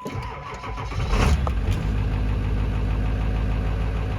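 2000 Ford Excursion's 7.3 L Powerstroke V8 diesel cranking on a starter with a failing solenoid, catching at its loudest about a second in, then settling into a steady idle.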